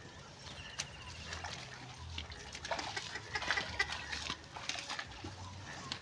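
Water buffaloes walking through wet, muddy ground: irregular squelching and knocking steps, busiest midway through. A short, rapid high trill comes about a second in.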